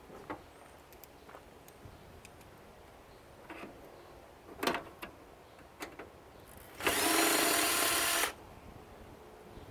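Drill fitted with a 90-degree right-angle attachment running once for about a second and a half, most likely backing out a screw in the monitor's metal case. A few light clicks and knocks come before it as parts are handled.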